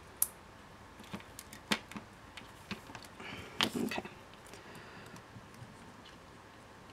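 Quiet, scattered clicks and light rustling of fingers wrapping thin jewellery wire into a loop by hand, with a sharp tick just after the start and a short cluster of handling noise around the middle.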